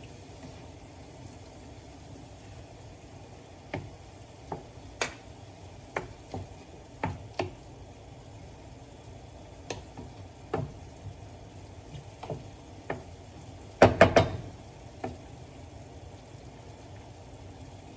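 Utensil knocking and clicking against a pot while stirring chicken simmering in broth: scattered light knocks throughout, with a louder clatter of several knocks about fourteen seconds in, over a steady low simmer.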